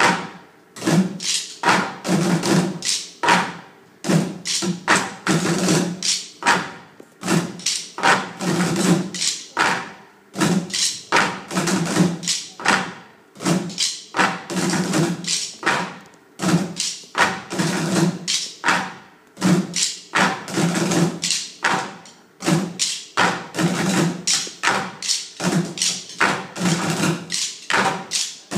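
A group of performers drumming a rhythm in unison on upturned plastic buckets. Deep thumps mix with sharp taps and stick clicks in rapid phrases a second or two long, with short breaks between them.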